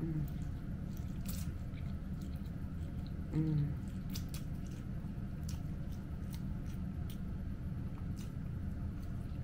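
A person chewing spicy noodles and fried chicken close to the microphone: wet chewing with scattered sharp clicks, and a short vocal hum about three and a half seconds in.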